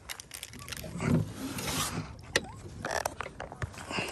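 Fishing reel being cranked to wind in line on a hooked fish, its gears and clicker ratcheting, with sharp knocks and a heavier thump about a second in.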